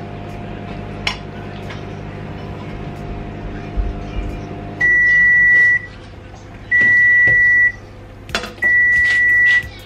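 Microwave oven running with a steady hum, which stops as the timer runs out. The end-of-cycle signal follows: three loud, high, steady beeps, each about a second long.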